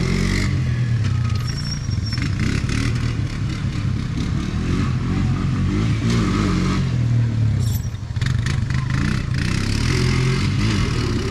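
ATV engine revving up and down, its pitch rising and falling over and over as the rider accelerates and backs off around the barrels.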